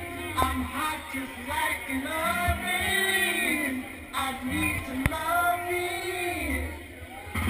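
Dance music from a DJ set played over a club sound system. A sung vocal melody carries it, with only light, intermittent bass under it.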